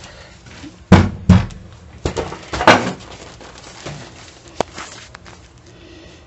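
Handling knocks: several dull thumps, the loudest about a second in and near three seconds, then a single sharp click more than four seconds in.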